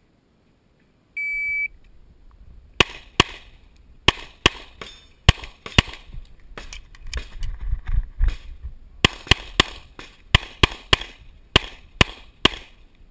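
An IPSC shot timer gives one short, high start beep, then a pistol fires a fast string of shots, mostly in pairs and quick runs. The shots break off for a couple of seconds about halfway, with only a low rumble, then resume in rapid pairs.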